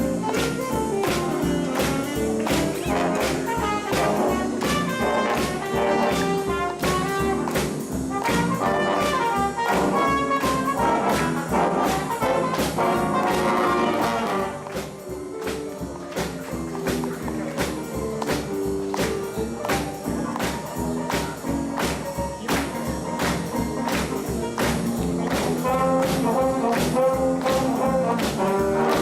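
School jazz big band playing live: trumpets and trombones carry the tune over a steady drum beat, dropping briefly quieter about halfway through.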